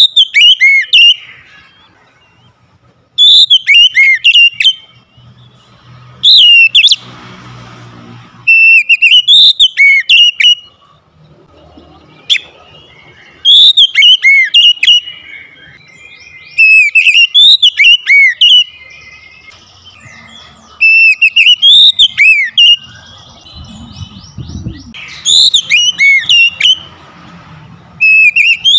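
Oriental magpie-robin singing loud, whistled song phrases with sweeping, warbling notes. The bird repeats a short burst about every three to four seconds, with quieter pauses between.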